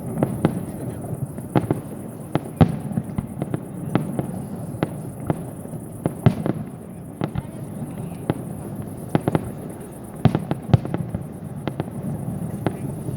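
Fireworks display: aerial shells bursting one after another in a quick, irregular barrage of sharp bangs over a steady low rumble.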